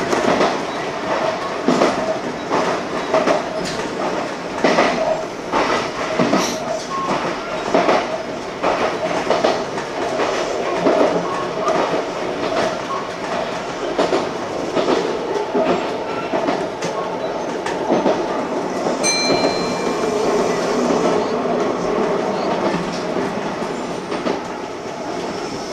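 Kintetsu electric train running along the track, its wheels clacking over rail joints every second or two over a steady running noise. A brief high-pitched tone sounds about two-thirds of the way through.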